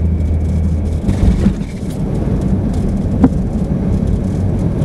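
Car driving: steady low road and engine rumble, with a low hum that stops about a second in and a single sharp click about three seconds in.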